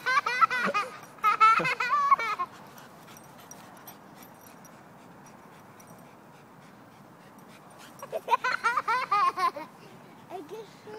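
A toddler laughing in two bursts of quick, high-pitched giggles: one in the first two seconds or so, another about eight seconds in.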